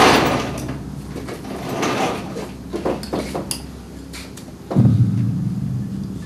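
A door scraping and creaking, with scattered knocks and clicks of someone moving in the dark; a low creak rises near the end.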